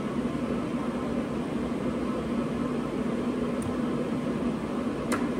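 Steady whooshing hum with a constant low tone, and one short sharp click about five seconds in.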